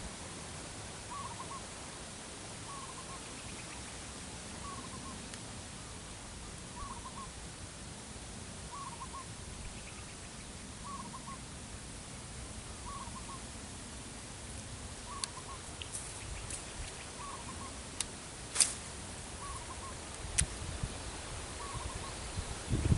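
A bird calls a short double note about every two seconds over a steady outdoor hiss. A few sharp clicks come in the last several seconds.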